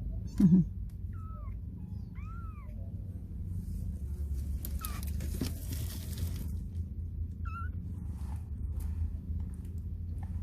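A newborn kitten mewing: four or five short, thin, high calls, each rising and falling, spread out with pauses between them. A sudden loud thump about half a second in is the loudest sound.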